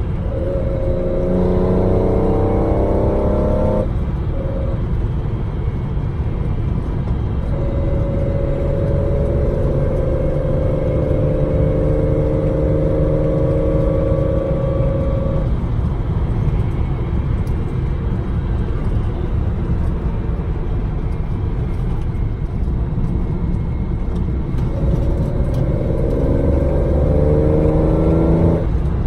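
Datsun 260Z's straight-six breathing through triple Mikuni sidedraft carburettors, heard from inside the cabin on the move. The engine revs up through a gear near the start, runs at a steady cruise, and revs up again near the end.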